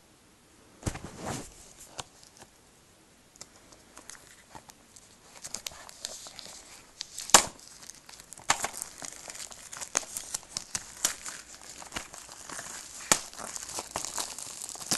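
Plastic shrink-wrap being torn and peeled off a Blu-ray case and crumpled by hand: irregular crinkling and tearing with sharp clicks, sparse at first and busier from about five seconds in, the loudest click about seven seconds in.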